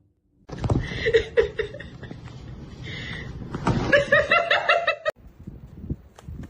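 Laughter lasting about four and a half seconds, stopping abruptly, then a quieter stretch with a few sharp clicks.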